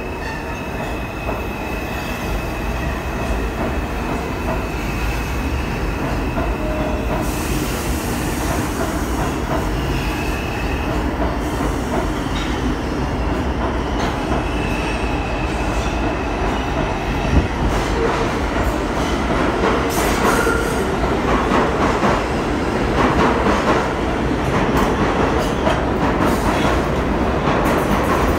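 An R142 subway train pulls out and accelerates past on the adjacent track, a steady rolling rumble that grows louder as it picks up speed. Wheel clicks over the rail joints come thicker in the second half as the last cars pass and run into the tunnel.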